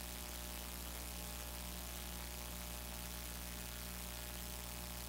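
Steady low electrical mains hum with an even hiss, unchanging throughout.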